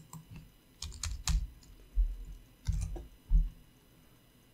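Keys on a computer keyboard tapped about six or seven times at an irregular pace, each tap a short click with a dull thump, as a number in the code is deleted and retyped.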